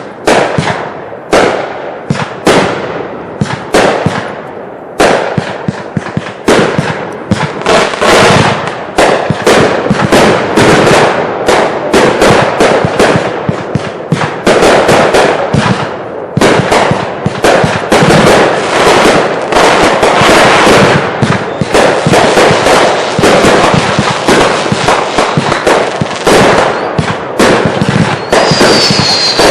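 Consumer fireworks going off in a finale barrage: loud bangs and crackles, a few a second at first, then packing into a near-continuous volley from about eight seconds in. High whistles join near the end.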